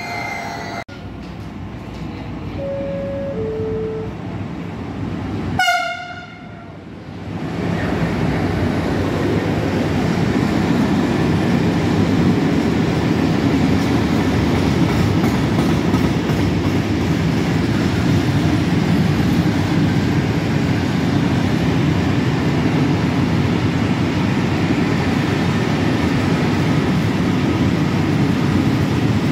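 Freight train passing close by: a short horn blast about six seconds in, after two brief lower tones around three seconds in. Then comes the loud, steady rolling and rattling of a long rake of open box wagons running past.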